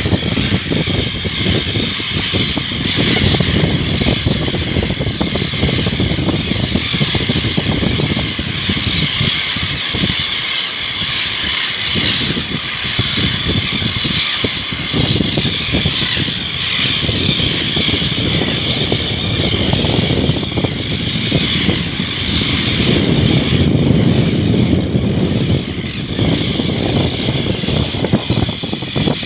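A continuous high-pitched din from a large flock of terns calling together, over a steady rumble of wind on the microphone and surf.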